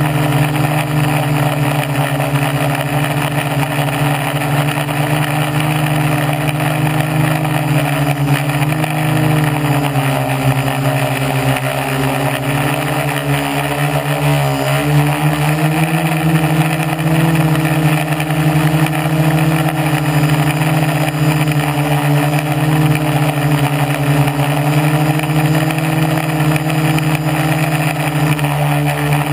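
Hobbyking SK450 quadcopter's Turnigy Gold 1100kv brushless motors spinning 10x4.5 propellers in flight, heard from a camera mounted on the frame. A steady, loud drone with a hiss of prop wash, its pitch shifting slightly as the throttle changes.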